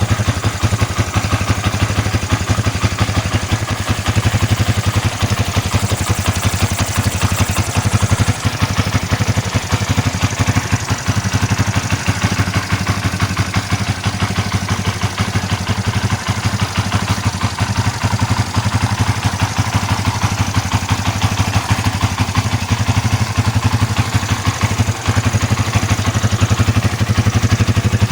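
Motorcycle engine fitted with a reground performance camshaft, idling steadily as a fast, even run of exhaust pulses.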